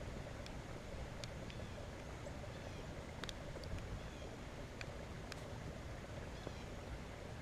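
Light rain: a steady hiss of drizzle, with scattered sharp ticks of drops striking close by.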